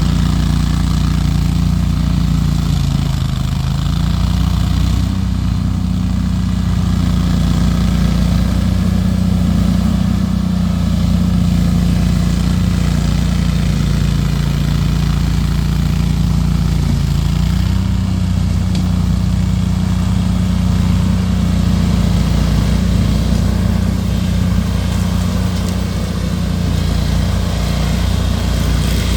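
Engine of a Panda 27 remote-controlled mower running steadily while mowing. Its pitch dips briefly about three seconds in and shifts again around seventeen seconds.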